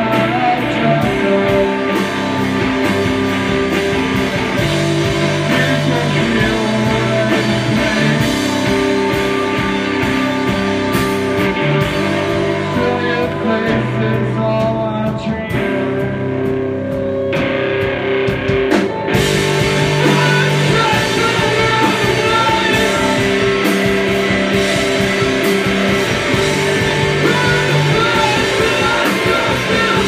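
Rock band playing live in a rehearsal room: electric guitars and a drum kit, loud and full. The high end thins out for a few seconds midway, then comes back in.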